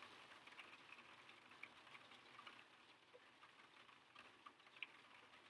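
Near silence: quiet room tone with faint, irregular small ticks.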